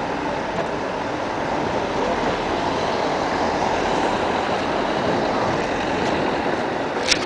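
Street traffic noise, with a small car driving slowly past close by and the noise swelling a little in the middle. A short, sharp high squeak comes near the end.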